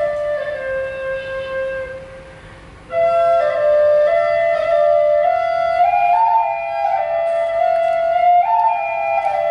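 Lithuanian folk wind pipes, two played together, sounding a slow melody in stepwise held notes. The tune falls and dies away about two seconds in, then starts again a second later.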